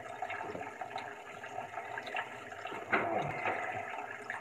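Water running steadily from a kitchen tap into the sink as a raw turkey is handled under it, with small clicks and a light knock about three seconds in.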